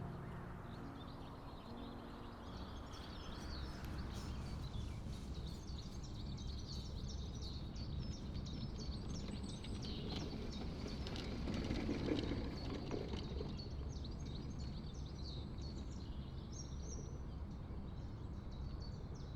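Outdoor ambience: many small birds chirping and singing in quick short calls over a low, steady rumble.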